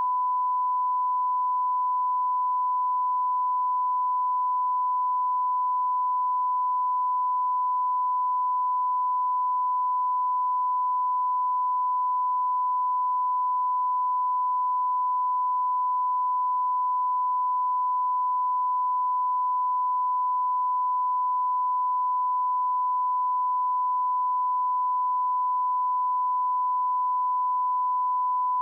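Broadcast line-up reference tone: one steady, unbroken pure tone at a thousand cycles per second. It is the audio that runs with the colour bars at the head of a TV programme master, for setting audio levels.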